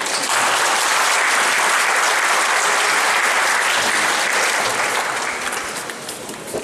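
Audience applauding, a dense clapping that starts at once, holds steady and tapers off near the end.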